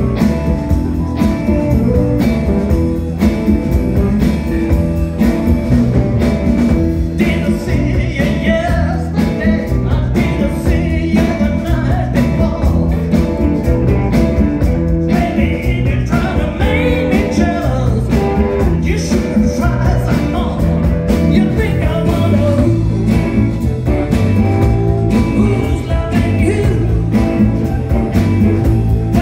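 Live rock band playing a blues-tinged rock-and-roll number with electric guitars, bass, keyboard and drums under a steady beat, and a singer's voice over it.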